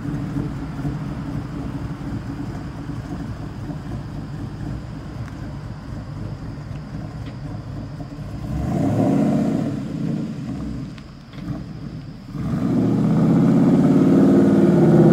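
Ford Mustang engine running at low speed, swelling briefly about two-thirds of the way in, then revving louder and harder near the end as the car pulls away.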